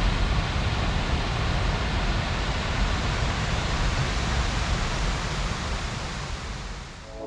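Steady rushing of a waterfall, an even roar of falling water that eases slightly near the end.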